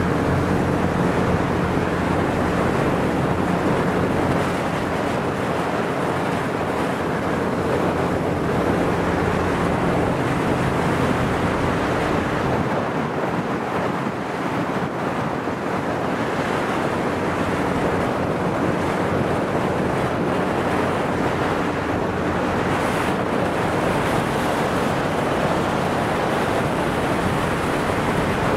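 Motorboat running steadily at speed, its engine humming low under the rush of water along the hull, with wind buffeting the microphone.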